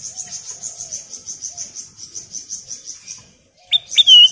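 A rapid, high-pitched pulsed trill of about eight pulses a second runs for about three seconds, with soft low chirps under it. Near the end, a caged kutilang emas bulbul gives two or three loud, sharp whistled notes.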